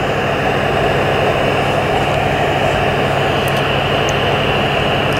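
A 1980s Sony Watchman portable CRT television's small speaker giving out a loud, steady hiss of static: the set is receiving no broadcast, as the old analogue VHF/UHF channels have been switched off.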